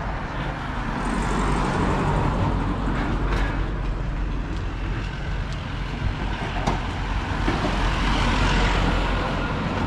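Road traffic: motor vehicles passing close by, a continuous rumble and tyre noise that swells and fades twice.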